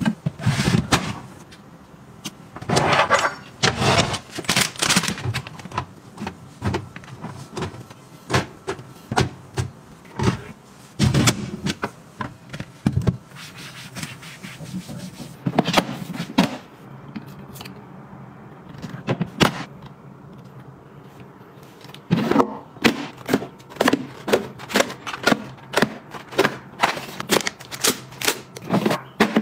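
Close-up handling noises of tidying a cabinet: plastic containers and packets being set down and shifted, with sharp taps and knocks at irregular intervals. A softer stretch of a wipe rubbing over the cabinet floor comes in the middle, and the taps come thick and fast near the end.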